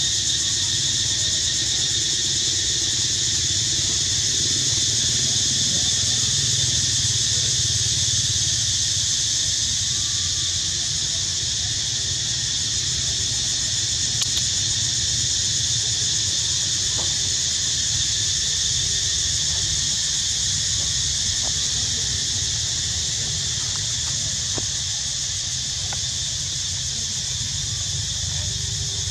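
A steady, high-pitched insect chorus, an even drone that never lets up, over a low outdoor rumble.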